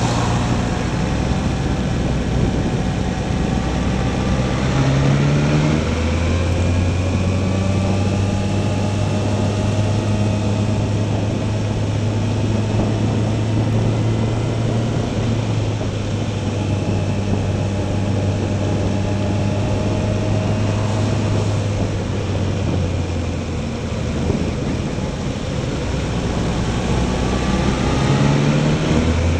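Motorcycle engine heard from the rider's onboard camera over wind noise: it pulls up in pitch, shifts up about six seconds in, then runs steadily at cruising speed. Near the end it eases off and picks up again.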